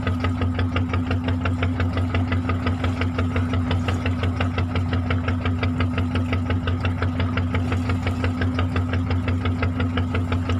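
Fishing boat's inboard engine running steadily at idle, with an even, rapid knocking beat and a low hum.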